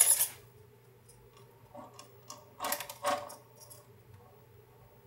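A few short clicks and light rattles, the loudest two close together about halfway through, over a faint steady hum.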